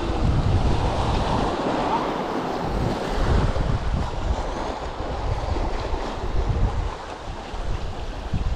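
Small waves washing in and breaking over a pebble shore, with wind buffeting the microphone in gusts.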